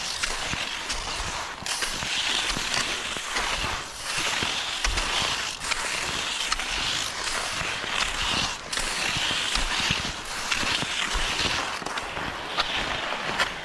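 Cross-country skis swishing and scraping over a groomed snow trail in a steady stride rhythm, the hiss swelling about every second and a half. Occasional sharp ticks come from ski poles planting in the snow.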